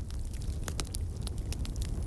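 Burning firewood crackling: scattered sharp pops and snaps over a steady low rumble.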